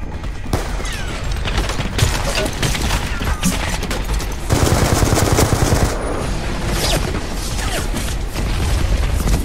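Battle-scene gunfire: scattered rifle and pistol shots, with a dense rapid burst about halfway through that lasts about a second and a half.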